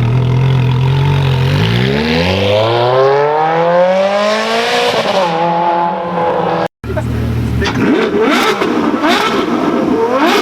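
A supercar engine holds a steady note, then accelerates hard, its pitch climbing for about three seconds before an upshift drops it. After an abrupt cut, a supercar engine revs again and again in short rising bursts, with sharp cracks among them.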